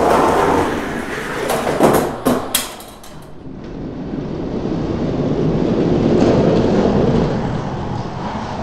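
Diecast toy monster trucks rolling down plastic race track: a steady rolling noise that dips about three seconds in and swells again, with a few sharp clicks about two seconds in.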